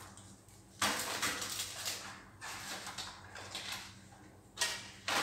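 Grocery packages being handled and disinfected by hand: irregular hissing, rustling bursts, a long one lasting over a second, then two short sharp ones near the end.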